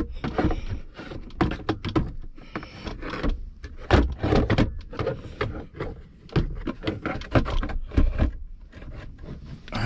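A hard plastic 3D-printed armrest knocking, clicking and scraping against the car's center console trim as it is pushed and worked into place by hand: a string of irregular clunks and rubs.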